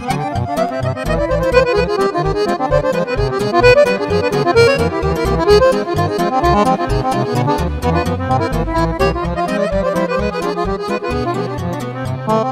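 Accordions playing fast, ornamented Romanian lăutărească runs together over a steady, even bass beat.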